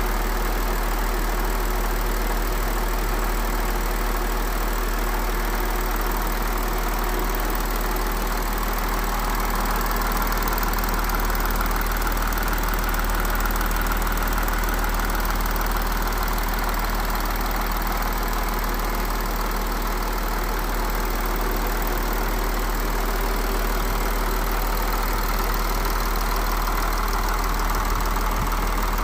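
Audi 3.0 TDI V6 diesel engine (CRTE) idling steadily.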